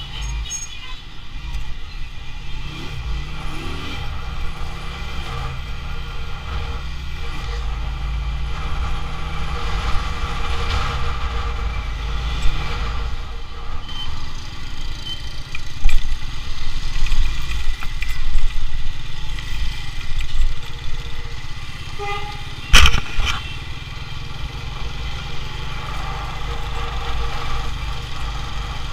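Riding a motorcycle through city traffic: the bike's engine running under a steady low rumble of wind on the microphone, with other traffic passing. There is one sharp knock late on.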